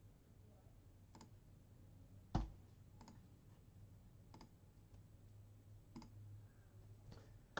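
Faint computer mouse clicks, about six single clicks spaced a second or so apart, the one about two and a half seconds in louder than the rest.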